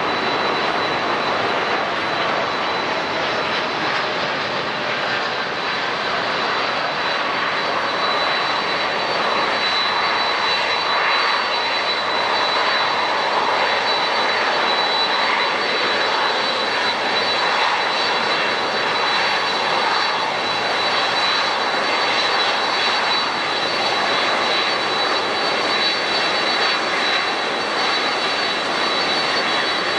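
Jet airliner engines running, a steady loud rushing noise with a thin, steady high whine over it.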